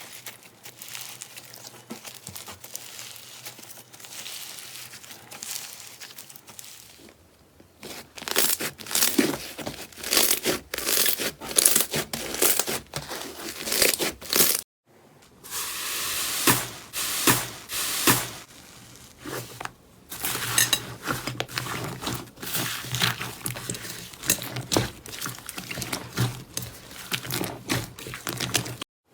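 Slime being squeezed and pressed close to the microphone, making crackling, crunchy sounds in quick irregular bursts, softer at first and denser from about a quarter of the way in. The sound breaks off for a moment about halfway, then the crackling resumes.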